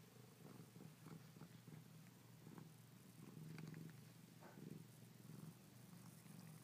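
Siamese cat purring faintly and steadily, with a few soft clicks.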